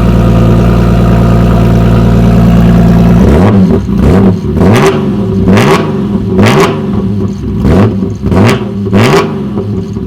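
BMW E46 M3's S54 straight-six running with its muffler removed: a steady idle, then about three seconds in a run of quick revs, the pitch rising and falling roughly once a second.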